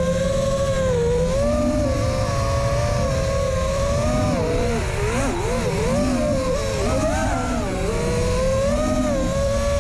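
FPV drone's brushless motors and propellers whining, the pitch rising and falling with the throttle and swinging quickly up and down for a few seconds in the middle, over a steady low rumble.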